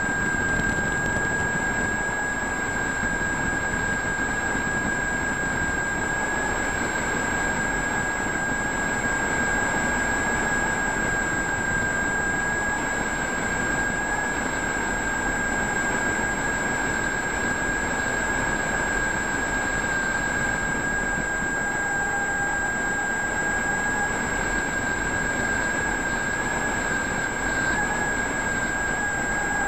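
Multiplex FunCub model plane's electric motor and propeller in cruise flight, a steady high whine over a constant rush of air, picked up by a camera mounted on the plane. The pitch dips slightly near the end.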